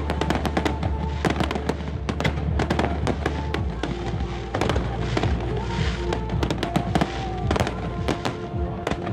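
Fireworks going off in a rapid, continuous series of sharp cracks and bangs, with music playing underneath.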